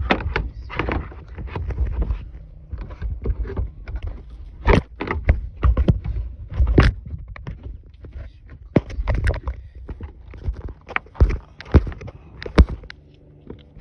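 Irregular clicks and knocks of plastic trim and light-assembly parts being handled and pressed back into place on a car's rear, over a low rumble.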